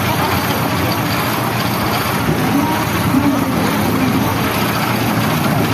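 Steady, loud fairground din from a running carnival ride: continuous machinery noise with a haze of background noise and no clear voices.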